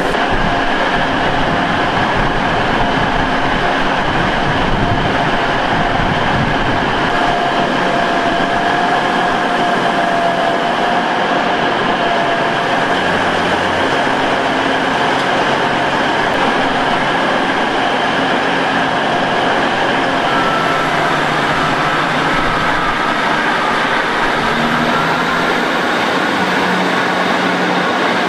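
Diesel multiple-unit passenger trains running at a station platform. There is a steady engine and rail noise with faint whining tones as the units move along the platform.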